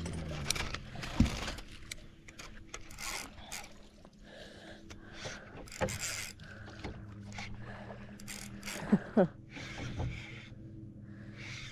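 Spinning reel being cranked as a hooked fish is reeled in, with irregular clicks and knocks of handling on the boat and a steady low hum underneath. A couple of short squeaks come about nine seconds in.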